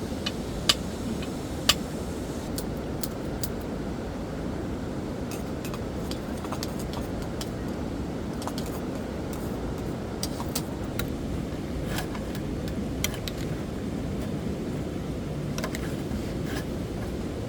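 A steady rushing noise with scattered sharp clicks and taps on top, the loudest about a second and two seconds in.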